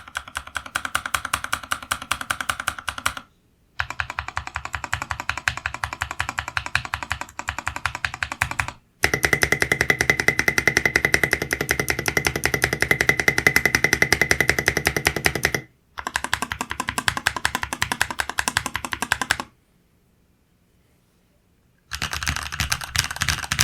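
Fast typing on a mechanical keyboard with lubed Glorious Holy Panda tactile switches and Tai-hao keycaps, in several runs of rapid keystrokes broken by short pauses; the longest run is in the middle.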